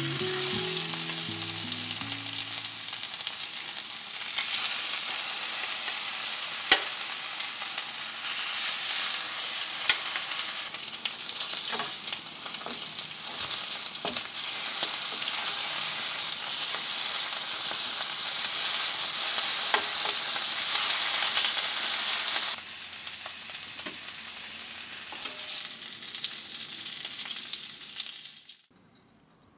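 Pork ribs sizzling as they sear in hot oil in a skillet, with sharp clicks of tongs turning them now and then. The sizzle drops abruptly about 22 seconds in and dies away near the end.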